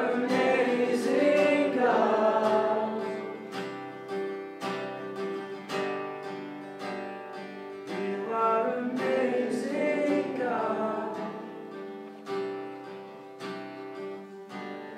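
Acoustic guitar strummed steadily with a small group singing a song along with it, the singing strongest in a phrase at the start and another about eight seconds in.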